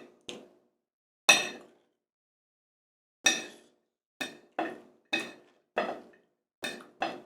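Fork and knife clinking against a plate while eating: about nine short, separate clinks, the loudest about a second and a half in.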